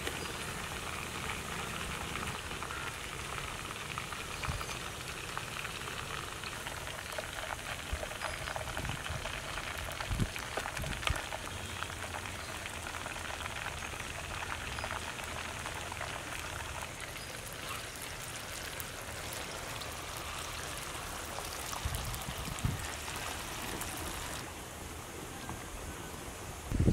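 Chicken pieces deep-frying in hot oil in a clay pot: a steady crackling sizzle, the chicken about 70% cooked. A few soft knocks sound over it, and the high crackle thins near the end.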